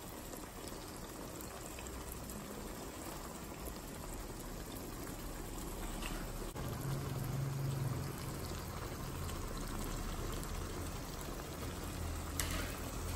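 Thick sauce with chicken pieces bubbling and sizzling gently in a non-stick wok as a steady, even hiss. A low hum comes in about halfway through.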